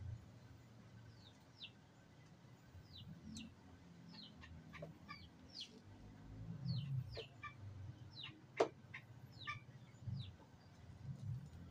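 Chickens clucking faintly and small birds chirping in short falling notes, with a few light clicks, the loudest about eight and a half seconds in, from a flat bar working at the plastic throttle bar end.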